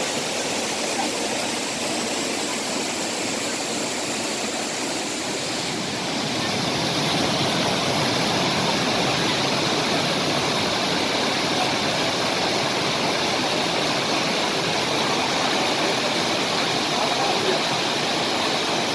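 Waterfall: a steady rush of falling water that gets slightly louder about six seconds in.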